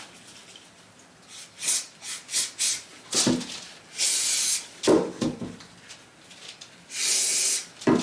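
Aerosol mould release agent sprayed onto a casting mould in two short hissing bursts, each under a second, about four and seven seconds in. Knocks and rustles from handling the can and mould come between the bursts.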